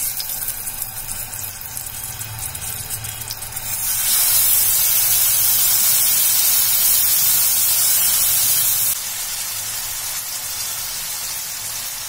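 Masala-coated fish pieces sizzling in hot coconut oil in a frying pan: a steady sizzle with fine crackling, then a much louder hiss for about five seconds in the middle that drops back abruptly to a softer sizzle.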